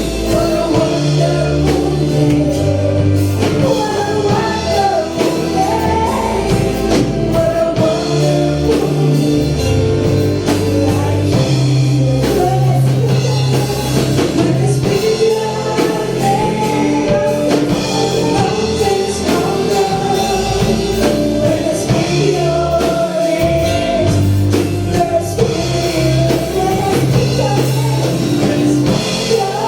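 Gospel worship music: a band with bass, drums and guitar playing while voices sing.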